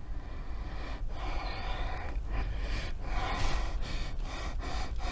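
A woman sniffing hard through her nose close to the microphone, a series of long sniffs about one a second, trying to smell a chicken-scented mask disc.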